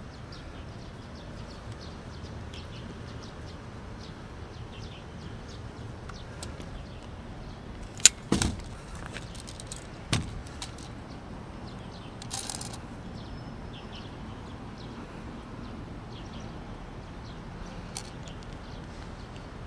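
Steady outdoor background noise broken by a few sharp clacks: a loud clack followed by a dull thud a moment later, then another knock a couple of seconds on, and a short rattle a little after that.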